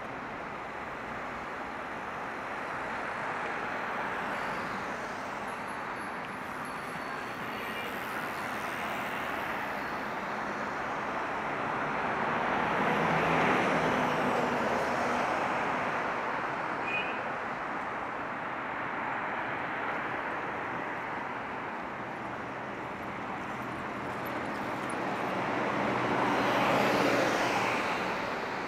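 Rush-hour road traffic: a steady wash of tyre and engine noise, swelling as vehicles pass close, loudest about halfway through and again near the end.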